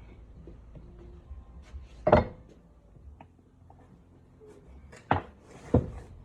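Tools and metal parts being handled during engine assembly: a few sharp clinks and knocks, the loudest about two seconds in and two more close together near the end, with fainter ticks between.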